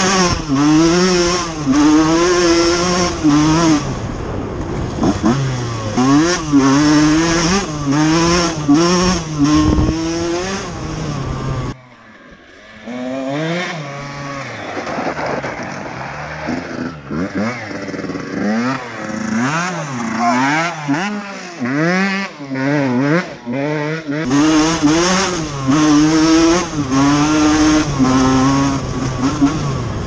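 1996 KTM 125 SX single-cylinder two-stroke engine revving up and dropping back again and again as the bike is ridden hard up a dirt track, heard from on the bike. For a stretch in the middle it is heard from beside the track as the bike rides past.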